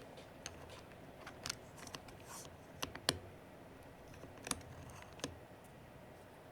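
Scattered, irregular plastic clicks as keycaps are pressed back onto an Aula F99 Pro mechanical keyboard's switches, about eight in all.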